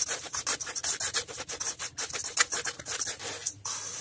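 A metal spoon tossing crisp fried poha chivda with peanuts and spice mix in a stainless steel bowl: a dense run of crunchy rustles and scrapes, one stroke after another.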